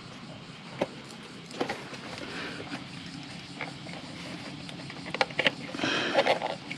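Scattered clicks and creaks of plastic as the used Honda NC700X air filter element is handled and pulled at in its black plastic frame, busiest and loudest about five to six and a half seconds in.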